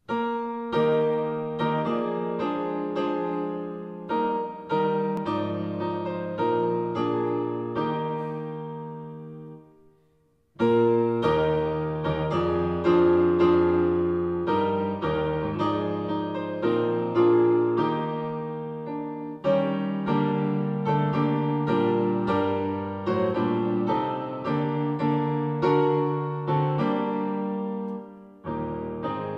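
Solo piano playing a slow tune in chords, the backing track for a sung school song. About ten seconds in, the notes die away almost to silence and the playing starts again half a second later.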